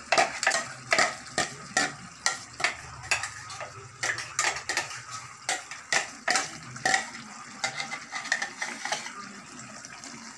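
Metal spoon scraping and knocking inside a steel mixer-grinder jar, tapping thick ground masala paste out into a pot, in a run of sharp clinks two or three times a second. The clinks thin out and soften after about seven seconds.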